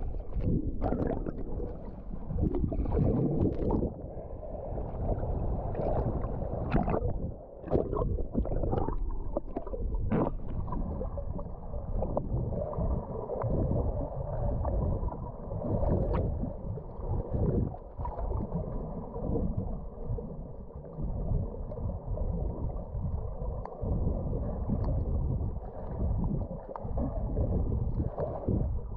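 Muffled underwater rumble and sloshing of moving water around a swimmer's camera, with scattered sharp clicks and knocks, most of them in the first ten seconds.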